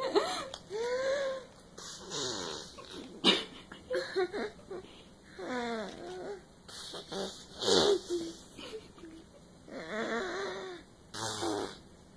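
A toddler blowing into her palm to make fart noises: a string of short buzzing blurts, one after another with brief pauses between.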